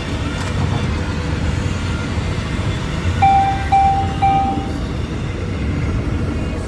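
Steady low road rumble of a car driving at speed, heard inside the cabin. About halfway through come three short electronic beeps on one pitch.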